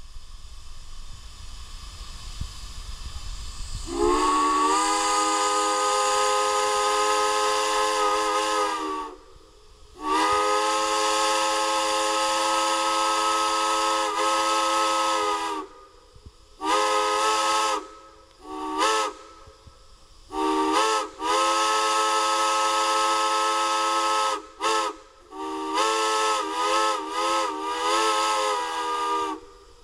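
Multi-chime steam whistle on a stand, blown on live steam. It opens with a hiss of escaping steam, then about four seconds in a chord of several notes sounds in two long blasts of about five seconds each. A string of shorter blasts follows, the last ones wavering in pitch.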